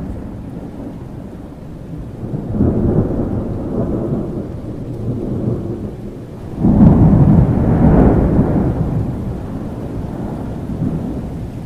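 Thunderstorm: steady rain with rolling thunder, one rumble swelling about two and a half seconds in and a louder clap breaking about six and a half seconds in, then rumbling away.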